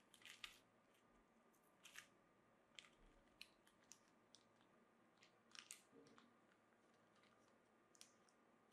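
A small clear plastic bag of tiny screws being handled: faint, scattered crinkles of the plastic and light clicks of the screws shifting inside, a little louder near the start and again about two and five and a half seconds in.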